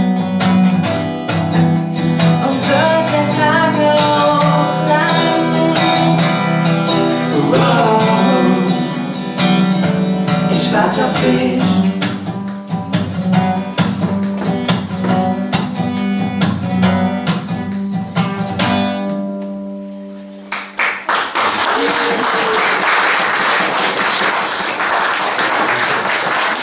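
Steel-string acoustic guitar strumming the closing chords of a song, ringing out and fading just under twenty seconds in. An audience then applauds.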